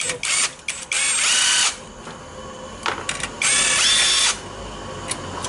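Cordless driver running twice in short bursts, its motor whine rising in pitch as it spins, with a few sharp clicks in between; it is backing bolts out of a hybrid inverter.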